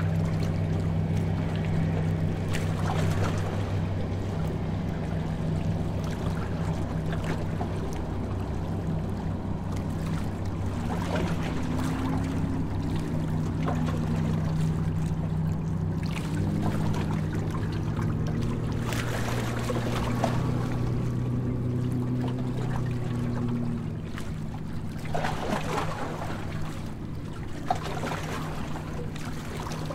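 Harbour tour boat's engine running with a steady low drone, with water swishing and splashing along the hull.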